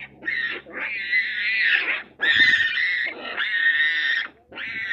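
Hamadryas baboons screaming: about five loud, high-pitched calls, the middle ones drawn out for one to two seconds each, with short breaks between.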